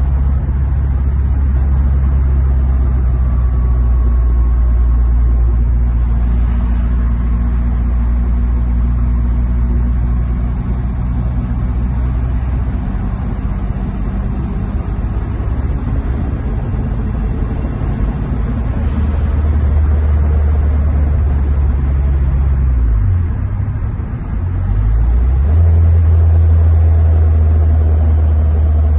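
Volkswagen Parati G3's turbocharged 1.6 four-cylinder engine droning steadily while the car cruises, heard from inside the cabin along with road noise. About 23 seconds in the note briefly dips, then it carries on higher and a little louder.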